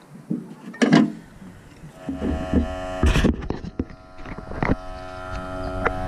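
Smoke leak-detection machine switched on about two seconds in, its small electric air pump humming steadily, with a few knocks and rattles as the unit is handled and hung from the hood.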